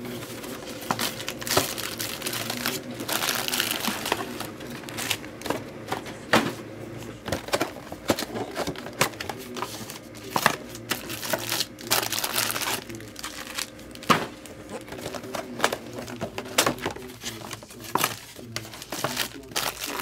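Plastic wrapping crinkling and tearing, with irregular sharp clicks and taps of handling, as sealed trading-card boxes and packs are opened.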